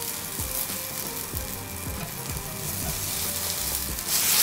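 Taco sizzling in a hot pan, with a few soft knocks of a utensil; the sizzling gets louder near the end.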